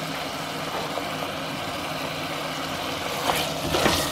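Chicken frying in a pan with a steady hiss over a low hum. From about three seconds in, a wooden spatula stirs and scrapes the pan as curry leaves go in, with louder sizzling and knocks.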